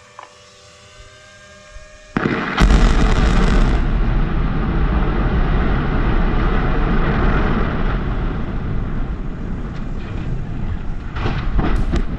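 Demolition charges detonating at the base of a power-plant smokestack: a sudden blast about two seconds in, then a long, deep rumble as the stack comes down, with a few sharp cracks near the end.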